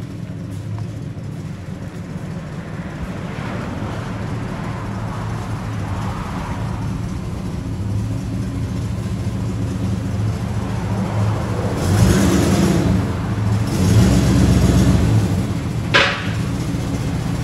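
1971 Chevrolet Chevelle SS V8 running at low speed through a true dual exhaust with an H-pipe and Flowmaster Super 10 mufflers as it pulls in, growing louder as it nears, with a couple of brief throttle pushes near the end and one short sharp sound about sixteen seconds in. The engine has an exhaust manifold leak, which the shop says can probably be heard.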